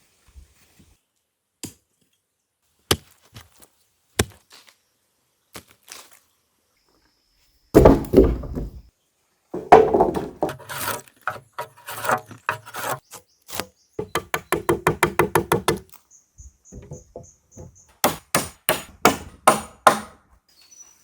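Wood being chopped and struck with hand tools: a few single knocks at first, then a dense flurry of blows around the middle, a fast even run of about eight light strokes a second, and strong blows about three a second near the end.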